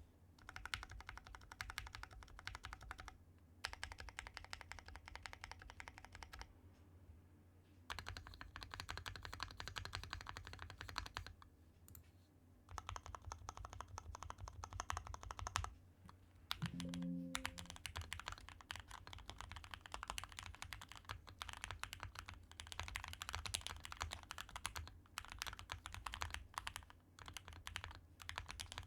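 Typing on a modded Keychron Q2 Pro mechanical keyboard: hand-lubed Gateron Milky Yellow Pro switches, lubed Holee-modded Durock V2 stabilisers, foam inside the case, a tape mod and GMK-clone keycaps. Fast runs of keystrokes come in bursts of a few seconds with short pauses between.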